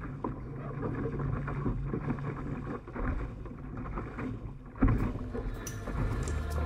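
Water rushing and splashing along the hull of a small sailing dinghy under way, with wind buffeting the microphone. A louder slap of water comes about five seconds in.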